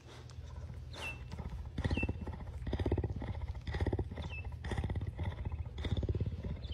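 Cougar purring while its chin is scratched: a low, rapid pulsing that swells and fades with each breath, about once a second, growing louder about two seconds in.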